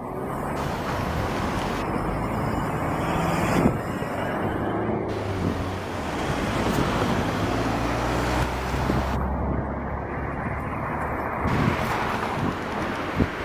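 Road traffic: a motor vehicle running and passing, a steady rush of engine and tyre noise with a low engine hum strongest through the middle.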